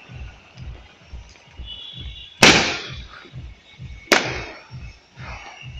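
Fireworks bursting in the air: two sharp bangs about a second and a half apart, each trailing off in a fading crackle and echo. A low, even thumping, about four beats a second, runs underneath.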